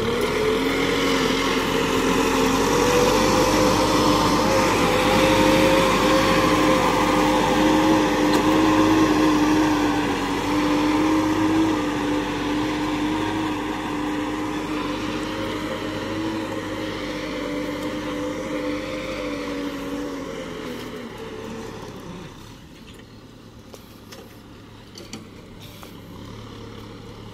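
Kubota tractor's diesel engine running steadily under load as it pulls a disc plough through the field. About two-thirds of the way through, the engine note fades and grows quieter as the tractor moves away.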